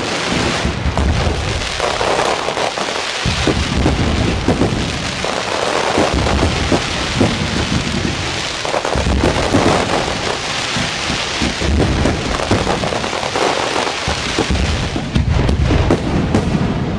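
Fireworks display: a dense, continuous crackle of many small bursts, with deep booms from shells coming back every two to three seconds.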